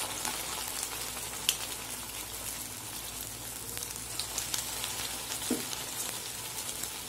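Bread-wrapped potato balls deep-frying in very hot oil in a kadai: a steady sizzle with scattered crackling pops.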